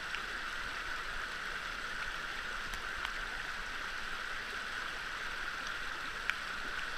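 Fast-flowing mountain stream rushing steadily over rocks, with a few faint clicks and one sharper knock about six seconds in.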